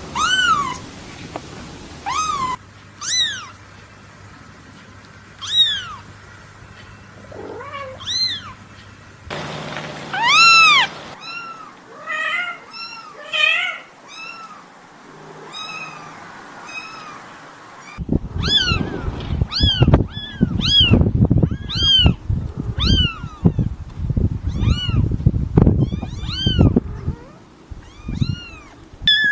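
Kittens meowing: short, high-pitched mews that rise and fall in pitch, some overlapping as several kittens call at once. In the second half the mews come about once a second over low knocking and rustling.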